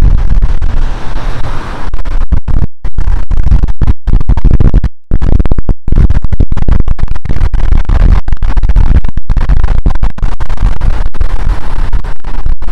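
Wind buffeting the microphone: a loud, distorted low rumble that keeps cutting out in many brief gaps from about two seconds in.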